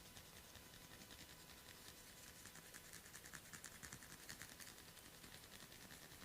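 Faint, quick crackling of hair strands being twisted and tugged between a barber's fingers during a head massage (hair cracking). The crackles come as a dense run of tiny snaps in the middle, over faint hiss.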